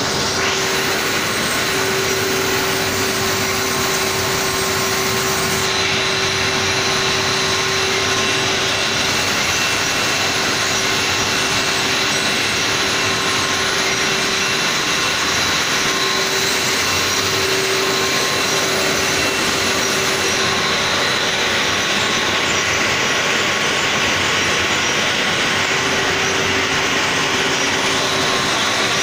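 Plastic lamination plant machinery running steadily: a constant loud machine drone with a steady hum and a few fixed tones over a hiss.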